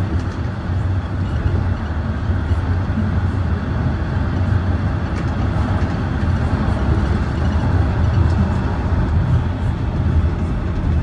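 Toronto Rocket subway train running steadily, heard from inside the car: a continuous low rumble with a few faint clicks.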